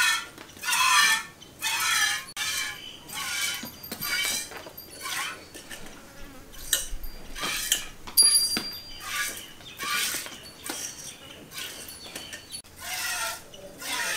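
Milk squirting into a steel pot as a cow is milked by hand: a hissing, slightly ringing spurt about once a second in a steady rhythm.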